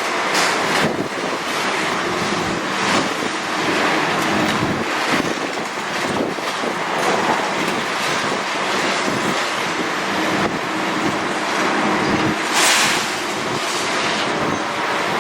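Demolition machinery at work: a heavy excavator's engine running under a dense, irregular clatter and crunch of breaking concrete and falling rubble, with a louder burst about twelve seconds in.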